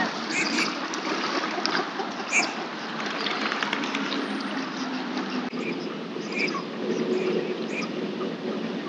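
Lake water lapping and splashing with small drips, and a few short bird calls over it.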